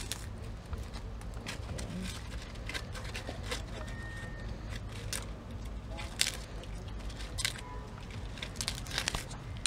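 Dry tobacco leaves crackling and rustling as they are handled and rolled into a cigar by hand, a scatter of short crisp clicks over a steady low rumble.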